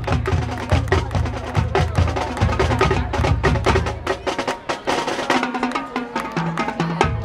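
High school marching band playing, with brass and woodwinds over a fast, dense drumline beat. The low drums drop out for about two seconds after the middle, coming back near the end.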